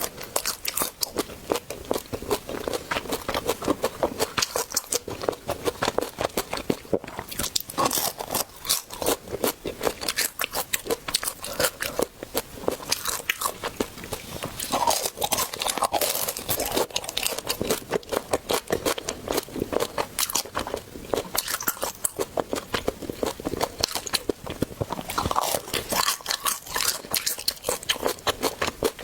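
A person biting and chewing crunchy food, a rapid, continuous run of crisp crunches.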